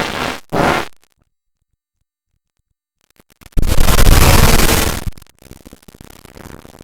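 Loud, harsh noise in chopped-up bursts. It cuts out to dead silence for about two and a half seconds, then comes back loud with a few clicks about three and a half seconds in, and drops to a faint crackle near the end.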